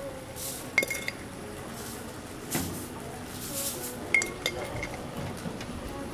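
Metal cooking utensils clinking against metal at a toast stall: three sharp, ringing clinks, about a second in and twice just after four seconds in, with short rushes of noise between them.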